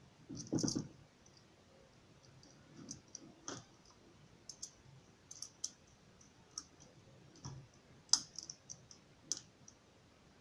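Irregular small clicks and light knocks of a screwdriver against the screws and plastic body of a plug socket as its wire terminals are tightened. The loudest click comes about eight seconds in.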